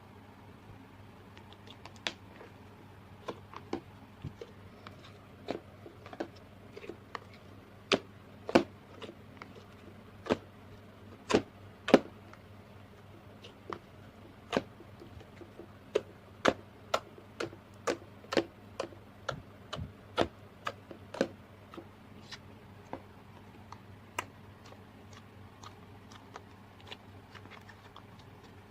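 Slime with add-ins mixed in being poked and squeezed by hand, making irregular sharp pops and clicks, densest and loudest through the middle of the stretch.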